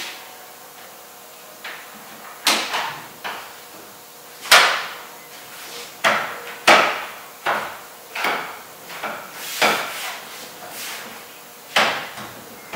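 Irregular sharp knocks and clunks of a steel hinge rod and hollow plastic wall panels of a portable restroom being worked together, about one or two a second, with the loudest about four and a half and six and a half seconds in.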